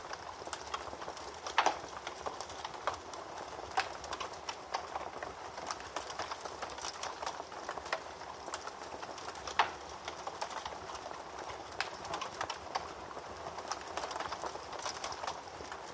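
Wood fire crackling in a fireplace: a steady stream of small crackles with a few sharp, louder pops, three of them standing out.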